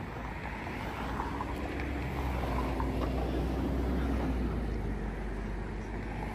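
City bus driving past over general street traffic noise; its low engine rumble swells to a peak about four seconds in, then fades.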